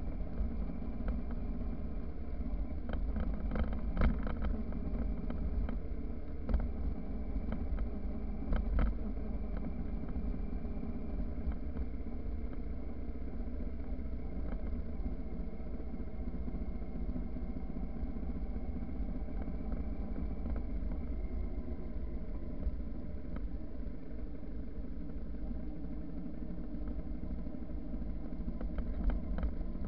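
Motorcycle engine running steadily at cruising speed on a dirt road, over a heavy low rumble. A few sharp knocks and rattles in the first nine seconds.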